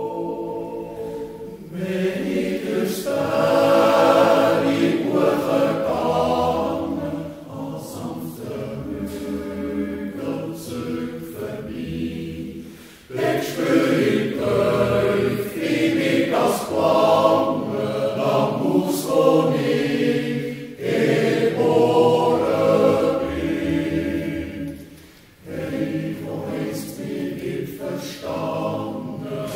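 Swiss yodel choir of men's and women's voices singing a yodel song a cappella, in long phrases with brief breaks about halfway through and again near the end.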